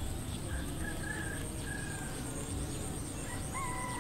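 Birds calling in the background: a few short whistled notes, about half a second in and again near the end, over a steady low rumble.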